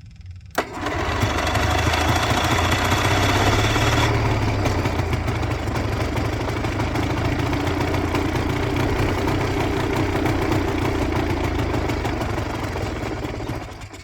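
Quicksilver ultralight's two-stroke engine catching on a choked start attempt. It runs loud and steady for about thirteen seconds, then cuts out abruptly near the end.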